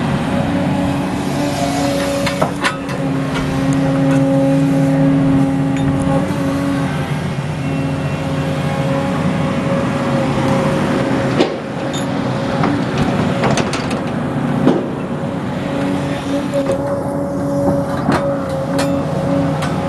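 Tracked excavator's diesel engine running under load with a steady whine as it digs a trench, with scattered clanks and scrapes of the steel bucket against stony soil.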